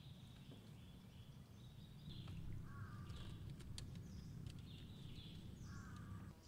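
Faint birdsong: several short chirping and warbling calls from different birds over a low steady rumble. A few sharp clicks come near the middle.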